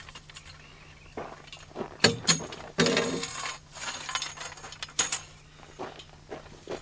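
EMT conduit pipes and metal rack connectors clinking and knocking together as a pipe target rack is assembled. Several sharp metal knocks, some ringing briefly, and a longer metal-on-metal scrape about three seconds in.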